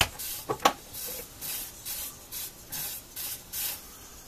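Hot soldering iron tip wiped repeatedly across a damp cellulose sponge to clean it after tinning. A click at the start, then a series of short sizzling hisses, about two a second.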